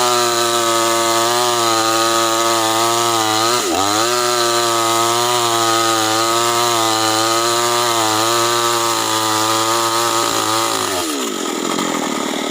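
Chainsaw engine running at high revs while cutting acacia wood. The revs dip sharply and recover a little over three seconds in, then fall away steeply near the end as the throttle is released.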